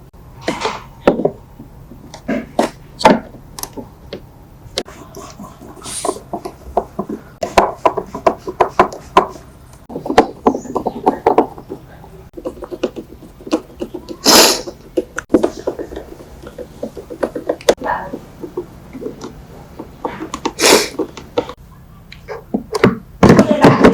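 Irregular clicks, knocks and clattering from hands and tools working on parts, some loud and sharp, with short stretches of muffled voice-like sound.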